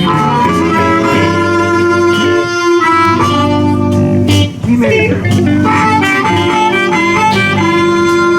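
A live blues band playing a boogie shuffle: electric guitar, harmonica and saxophone over bass and drums.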